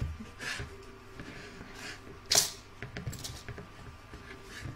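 Hands handling a quilted fabric piece and its stabilizer in an embroidery hoop while taking out pins: a string of soft rustles and small clicks, with one sharper rustle about two and a half seconds in.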